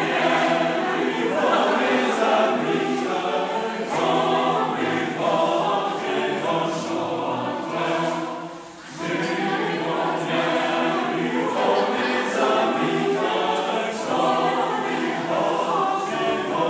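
Choir singing, with one short break in the singing about eight and a half seconds in.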